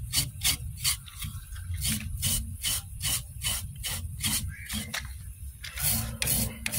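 A hand scraper stroking singed hair off a hog's skin in quick repeated rasping scrapes, about three strokes a second, with a short pause about five seconds in.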